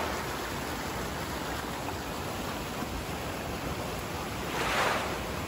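Fast mountain creek rushing and cascading over boulders, a steady rush of water with a brief louder swell near the end.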